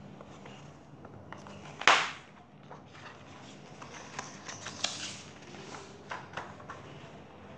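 Paper pages of a picture book being handled and turned by hand: one loud swish about two seconds in, then a run of small rustles and taps.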